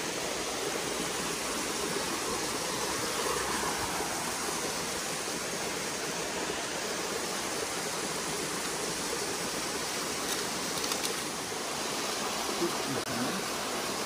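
Ranmudu Ella, a small waterfall, pouring into a rock pool: a steady rush of falling water.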